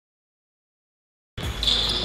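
Dead silence, then about one and a half seconds in the room noise of an indoor basketball gym cuts in suddenly, with a low hum and a steady high-pitched tone.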